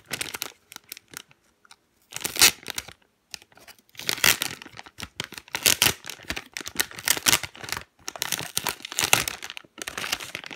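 Clear plastic squishy packaging bag crinkling and being torn open by hand, in irregular bursts with short pauses and a sharp loud rustle about two and a half seconds in.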